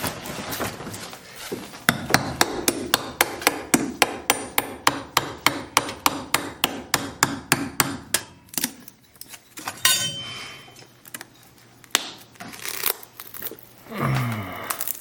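Rapid hammer blows, about four a second, driving under carpet tack strip to pry it off the floor. They stop about halfway through, followed by a brief scrape and a few single knocks.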